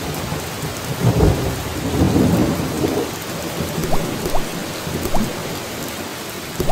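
Steady rain falling, with low rolls of thunder about one and two seconds in. A few short rising plinks, like water drops, come near the middle.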